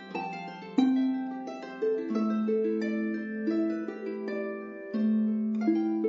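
Instrumental background music: a slow melody of plucked notes that start sharply and ring away, over a held low note.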